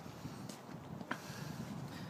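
Faint footsteps of a person walking on pavement: two soft ticks about half a second apart over low outdoor background noise.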